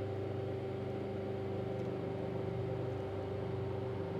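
Koolkare Plus A/C service machine's recovery compressor running with a steady hum, pulling refrigerant out of a vehicle's air-conditioning system.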